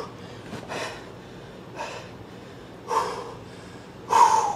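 A man breathing hard under exertion: about four forceful breaths, roughly one a second, the last the loudest.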